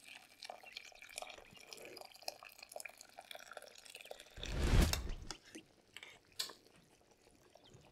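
Boiling water poured from a kettle into a pot of soup. It starts as faint trickling and drips, then there is a louder splashing gush for about a second, a little past four seconds in.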